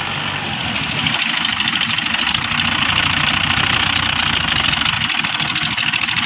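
Mahindra Arjun 555 DI tractor's diesel engine running under load as it pulls a heavily loaded trailer through loose sand. The engine gets louder about a second in and then holds steady.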